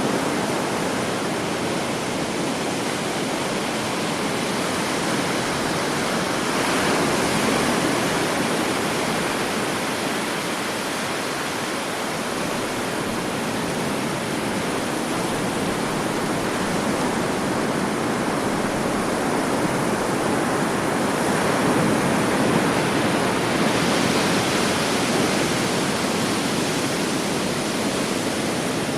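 Calm sea washing onto a beach: a steady rush of surf that swells gently every several seconds, around seven, seventeen and twenty-three seconds in.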